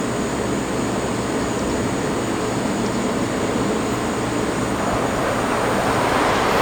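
Train approaching at speed: a steady rushing roar with a low hum, building slightly louder near the end.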